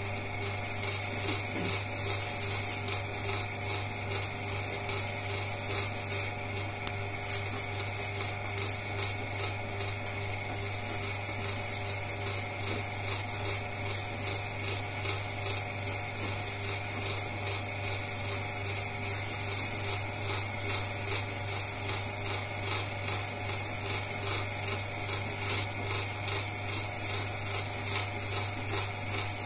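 Potter's wheel running with a steady hum while wet clay is rubbed and shaped under the hands as a vase is thrown.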